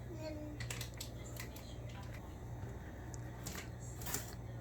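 Faint scattered clicks and rustles of a toddler handling things and climbing about inside an open refrigerator, over a low steady hum.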